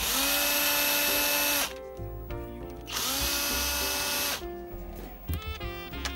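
Eltos BMP-570 oscillating multi-tool's electric motor switched on twice, about a second apart: each time it spins up quickly, runs steadily for a second and a half, and is switched off.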